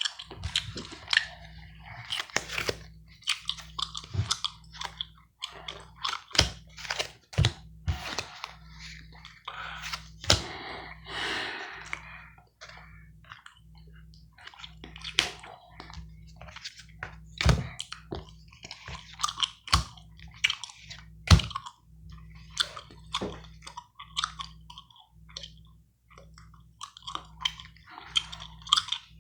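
Close-miked gum chewing: an irregular run of short, wet smacks and clicks from the mouth.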